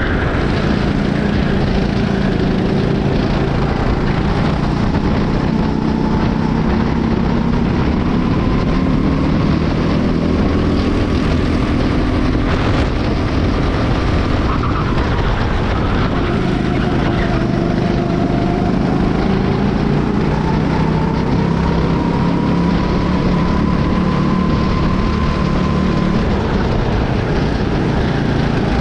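Onboard sound of a Honda-powered racing kart's engine running hard, its pitch slowly rising and falling several times as it speeds up and slows down around the track, over a steady rushing noise.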